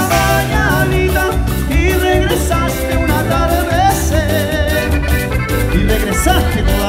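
Live ranchera-cumbia band playing an instrumental stretch: a wavering lead melody over electric guitar, accordion, bass and drums with a steady dance beat.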